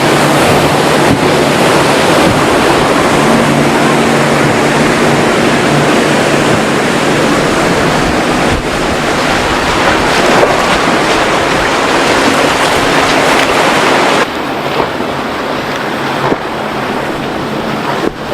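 Loud rush of wind on the microphone and surf, with a faint steady boat engine hum underneath; the rush eases about fourteen seconds in.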